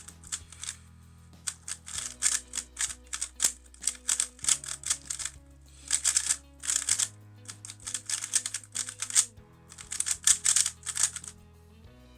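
Rapid clacking of a MoYu RS3M magnetic 3x3 speedcube being turned, in flurries of quick turns broken by short pauses, over background music with sustained low chords.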